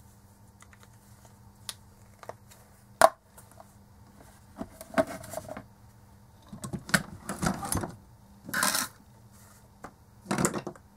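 Handling noise as a small whiteboard is lifted and moved off a work mat: a sharp click about three seconds in, then bursts of scraping and clattering from hard objects being shifted.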